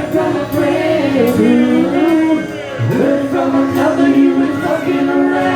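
Live rock band playing with sung vocals: wavering held vocal notes over guitar and bass, with regular cymbal strikes.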